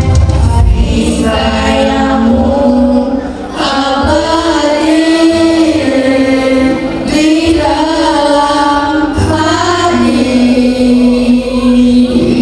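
A group of children singing a song together over a musical backing track, with long held notes.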